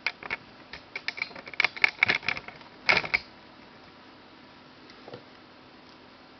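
A rapid, irregular series of light clicks and taps over roughly the first three seconds, with a louder cluster near the end of the run.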